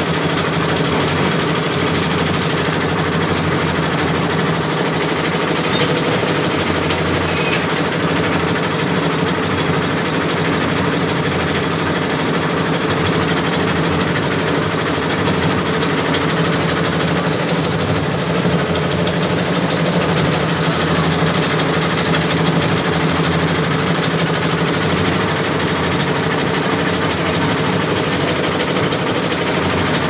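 Engine of a concrete mixer-cum-lift machine running steadily under load, driving the mixing drum and hoist.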